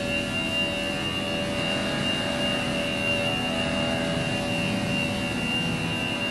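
Small motor of a 1960s Scalecraft toy boat running steadily, a constant high whine over a rough hum.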